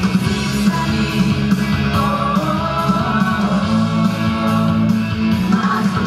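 A mixed vocal ensemble of men and women singing a song together into handheld microphones over instrumental accompaniment, amplified through the hall's sound system.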